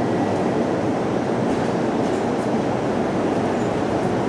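Aichi Loop Railway 2000 series electric train standing at the platform, its onboard equipment giving a steady, even noise.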